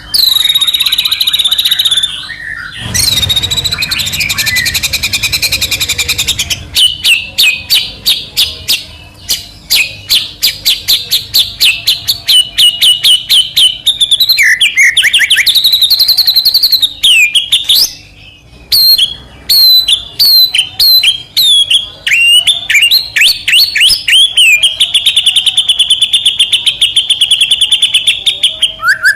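White-rumped shama (murai batu) singing loudly without a break: a harsh rattling passage early on, then long runs of fast repeated chattering notes mixed with rising and falling whistles, and a rapid trill near the end.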